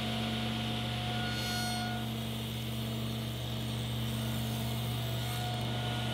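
Table saw running steadily at full speed: an even motor hum with the spinning blade's whir, no change in pitch or level.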